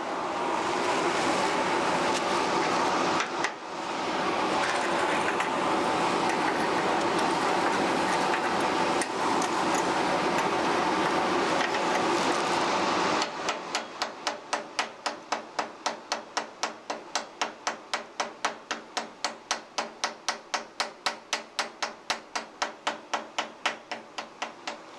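Stick-welding arc on a 7018 rod crackling and hissing steadily, with a brief break about three seconds in. About halfway through it stops and a chipping hammer knocks the slag off the bead in quick, even strikes, about three or four a second.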